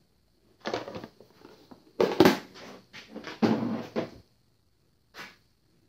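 Small containers and tools being handled on a paper-covered bench: a few short knocks and rustles spaced out, the loudest about two seconds in, as the dye jar is opened and a small glass bottle and a pipette are set out.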